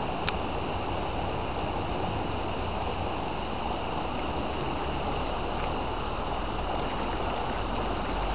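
Steady rushing noise of flowing floodwater, with a single faint click a fraction of a second in.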